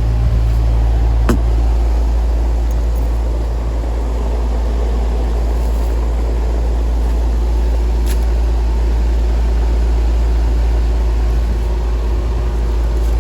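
Rooftop air-conditioning condenser unit running with a steady low hum, on a system that is not cooling.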